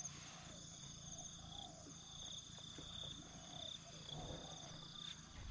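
Insects buzzing steadily in a faint, high, fast-pulsing trill.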